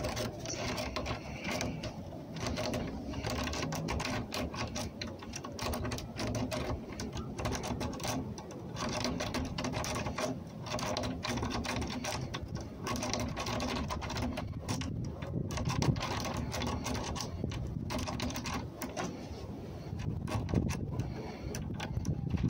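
Lock pick and tension wrench working inside a Travex pin-tumbler door lock cylinder: a steady run of rapid, irregular metallic clicking and scraping as the pins are picked one by one.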